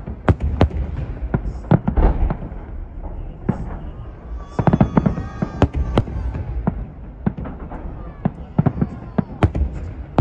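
Fireworks salute going off: a string of sharp bangs at irregular intervals, with people's voices in the background.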